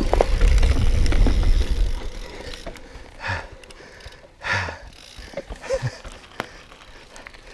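Mountain bike rolling along a rough ridge track, with wind rumbling on the helmet camera's microphone, dying away after about two seconds as the bike slows to a stop. After that come two short whooshes and a few faint clicks.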